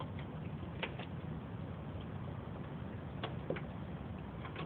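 A few light clicks of a wrench and metal parts being worked on the tractor's starter, over a steady low background rumble.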